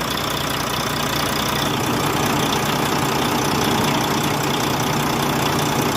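Volvo D13 inline-six diesel truck engine idling steadily, its valve clearances freshly adjusted; the valve ticking is gone.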